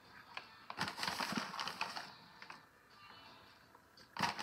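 A plastic bag of pecan pieces crinkling in the hand while pecans are pinched out and sprinkled onto muffin batter, with small scattered clicks; a louder rustle of the bag near the end.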